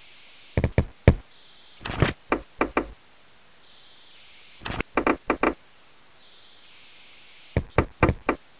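Groups of three to five quick, sharp knocks, four groups in all, coming about every three seconds.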